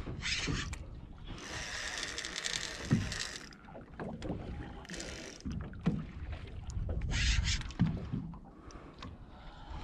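Sounds aboard a small fishing boat at sea: repeated bursts of hissing noise over a low rumble, with a sharp knock about three seconds in.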